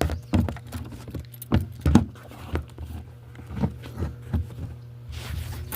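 A dozen or so irregular sharp clicks and knocks with a metallic clink, like things being handled, over a steady low hum.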